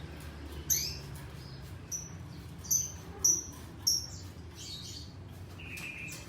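Pet lovebird giving short, shrill chirps, about five over three seconds, then a longer, lower call near the end, over a steady low hum.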